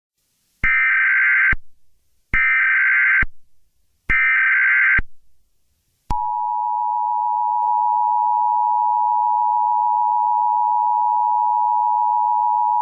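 Emergency Alert System (EAS) tones: three short bursts of the digital SAME header data tones, about 1.7 s apart. About six seconds in, the steady two-tone EAS attention signal starts.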